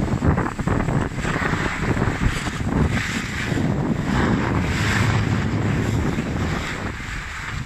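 Wind rumbling over the microphone of a camera moving down a ski slope, with the scrape of skis sliding over hard-packed snow coming and going.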